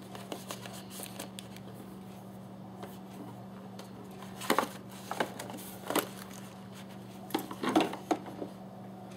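A metal pistol being lifted out of a hard plastic case and handled: scattered clicks and knocks of metal against plastic, loudest about four and a half, six and eight seconds in. A steady low hum runs underneath.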